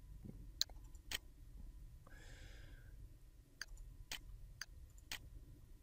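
Computer mouse clicking: six sharp clicks, two near the start and four about half a second apart in the second half, over a low steady hum, with a brief faint breathy noise about two seconds in.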